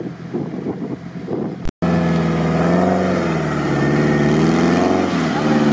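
Suzuki Samurai's swapped-in BMW engine running under load in deep mud, its revs rising and falling again and again. Before a cut about two seconds in, wind buffets the microphone over the engine.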